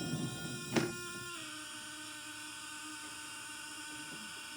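Chaney C4722 10-note sound synthesizer kit putting out a steady buzzy tone of about 350 Hz, rich in overtones. A single click comes about 0.8 seconds in, and the pitch steps down a little just over a second in.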